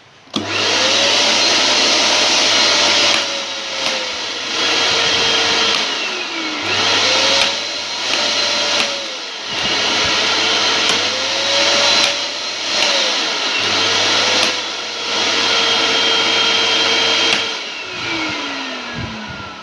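Electric vacuum cleaner motor switched on for a test run after cleaning its speed-switch contacts: it starts abruptly and runs loudly, its whine rising and falling in pitch several times. Near the end it is switched off and winds down with a falling whine.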